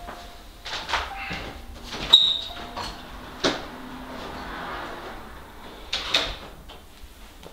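A door being opened and shut: a few separate knocks and clicks, the sharpest a latch-like click with a brief ring about two seconds in.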